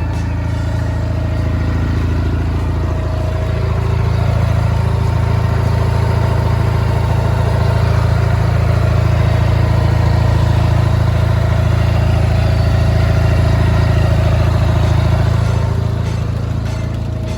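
Kubota ZP67 rice transplanter engine running steadily, picking up about four seconds in and easing back down near the end.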